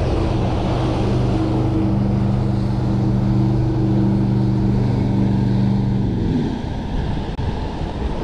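A boat motor runs with a steady hum, then winds down and stops about six seconds in, over steady wind and water noise.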